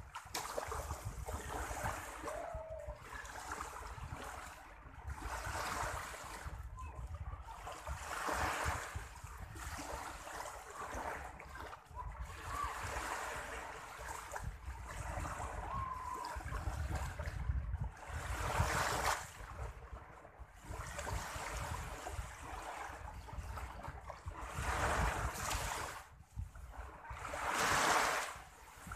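Small sea waves washing in the shallows, the wash swelling and fading every few seconds, with wind rumbling on the microphone.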